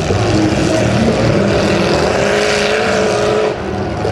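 Demolition derby car engines revving hard and steadily, with a short drop in level near the end.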